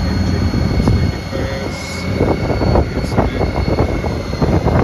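Honda GL1800 Gold Wing's flat-six engine idling steadily.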